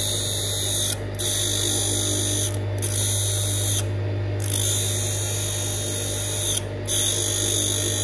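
Electric sharpening machine for scissors and clipper blades running with a steady low hum, while a blade is ground against it in repeated passes of about a second each, each pass a high grinding hiss.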